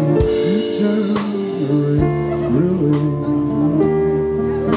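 Live band music: held keyboard chords over a low sliding melodic line, with drum and cymbal strikes about once a second.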